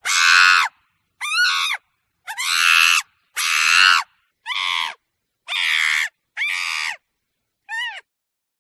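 A monkey screeching: eight harsh screams of about half a second each, cut apart by short silences. The last scream is shorter and thinner than the rest.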